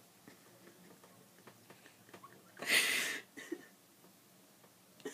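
A mostly quiet room with one short breathy laugh about two and a half seconds in.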